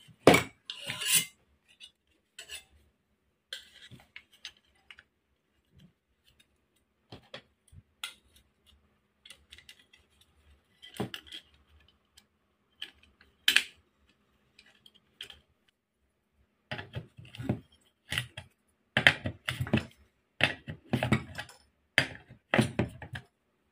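Small steel parts clinking and clacking as metal bracket plates and bolts are handled and fastened onto an angle grinder's body. Scattered sharp clinks, then a quick run of clacks over the last several seconds as a bolt is driven in with a hand driver.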